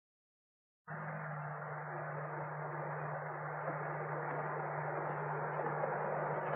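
Dead silence, then about a second in a steady soundtrack hiss with a low hum switches on abruptly and runs on evenly, with no other events. It is the background noise of an old film or TV soundtrack.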